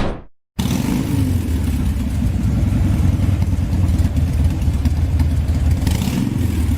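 A short, loud crash right at the start, then, after a brief gap, a motor scooter's engine running steadily.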